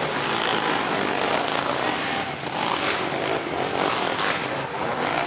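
A pack of racing three-wheeler ATC engines revving up and down together as the riders race over the jumps, in a continuous loud drone.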